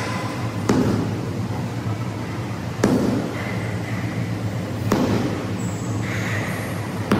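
Sharp slaps roughly every two seconds, four in all, as a rubber medicine ball is passed and caught between hands, over a steady low hum.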